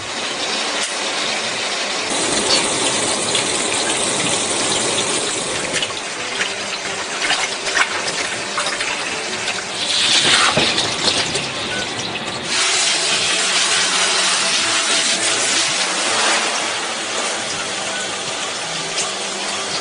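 Running water and splashing in a plastic tub as a dog's coat is rinsed and scrubbed by hand; a steady rushing that shifts in level a few times.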